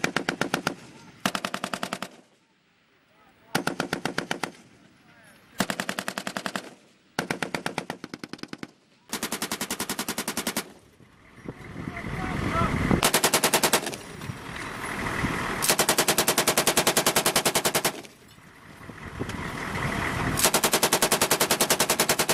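Belt-fed machine gun firing a string of short automatic bursts, about nine in all, each a rapid run of evenly spaced shots lasting one to two seconds, with brief pauses between.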